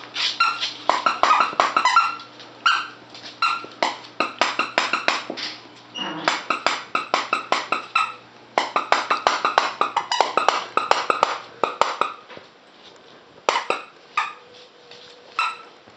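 Squeaky plush dog toy squeaking in fast runs of short, high squeaks as a West Highland white terrier chews it, in bursts with brief pauses, thinning to a few single squeaks near the end.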